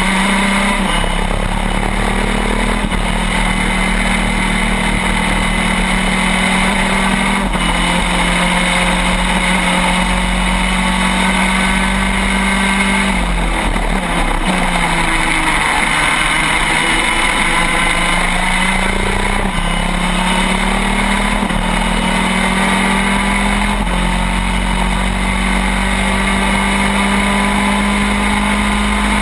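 Shifter kart's two-stroke engine running at racing speed, heard onboard: its pitch climbs steadily and then drops sharply at each gear change, several times over, with a break in the tone about halfway through.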